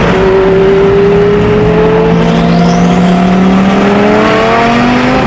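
Twin-turbo supercar engine pulling under a long, steady acceleration, its pitch climbing slowly. A thin whistle rises steeply in pitch about two seconds in.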